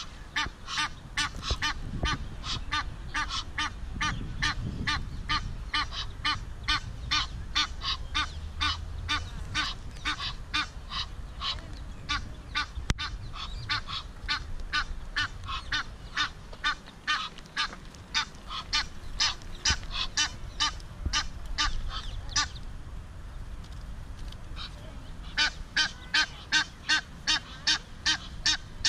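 Egyptian geese giving a long run of short, repeated calls, about two or three a second. The calls pause for a couple of seconds a little past two-thirds of the way through, then start again louder.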